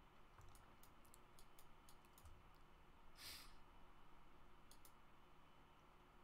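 Faint, scattered clicks of a computer mouse and keyboard, in a run early on and a couple more near the end, with one short hiss a little over three seconds in.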